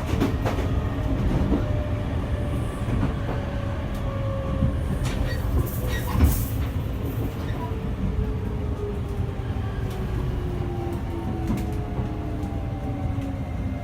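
Running sound inside an E653-1100 series electric train, whose Hitachi IGBT inverter drives the traction motors: a steady rumble of wheels on rail, with a motor whine that falls slowly and steadily in pitch. A few knocks from the wheels over rail joints, the loudest about six seconds in.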